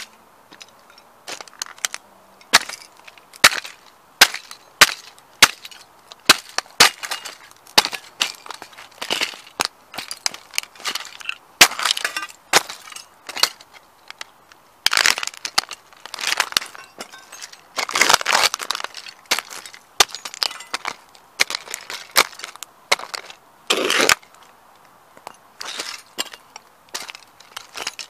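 Sneakers stomping on a Ferrari model car on asphalt, its body and parts cracking and snapping under each step. At first a crack comes about every three quarters of a second, then come longer bouts of crunching and grinding about halfway through and near the end.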